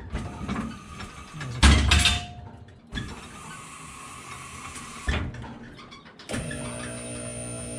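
BendPak QuickJack scissor lift being worked: clunks of the lift frame and a steady hiss for a couple of seconds as it lowers. About six seconds in, its electric hydraulic pump motor starts and runs with a steady hum.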